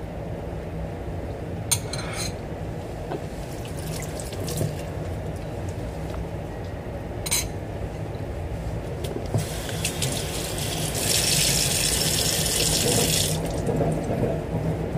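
Kitchen tap running for about four seconds, starting a little past the middle and stopping near the end, over a steady low hum. There are two sharp clicks earlier.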